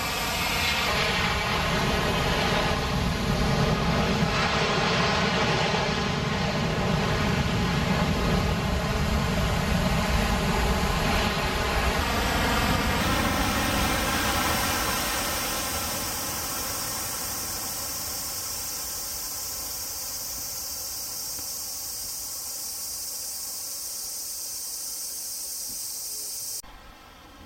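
Boeing 767-300ER airliner's twin jet engines rumbling with a steady whine as the jet rolls out on the runway just after touchdown. It is loud for the first dozen seconds, then dies away to a quieter steady rumble, and cuts off abruptly near the end.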